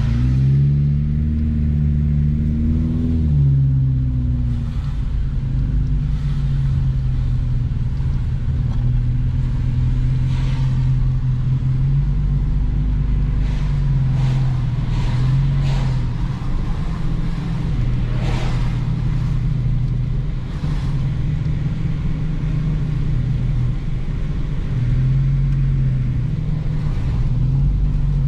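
Car engine and road noise heard from inside the moving car. The engine note rises as the car accelerates over the first few seconds, then runs steadily with small changes in pitch. A few short taps come in the middle stretch.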